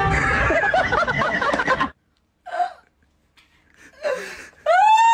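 A woman crying and wailing in bursts, with a near-quiet pause in the middle and one long wail near the end that rises and falls in pitch.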